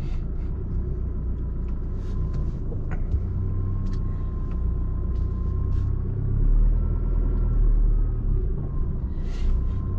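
A car driving, heard from inside the cabin: a steady low engine and road rumble with scattered light ticks and rattles. The rumble deepens and swells for a couple of seconds after about six seconds in.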